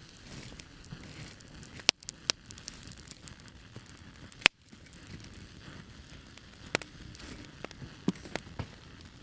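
Irregular crackling with scattered sharp pops and clicks over a faint steady hiss; the two loudest pops come about two seconds in and midway.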